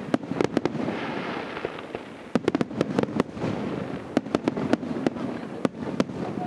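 Aerial fireworks bursting: rapid clusters of sharp bangs, with a hissing crackle about a second in before the bangs pick up again.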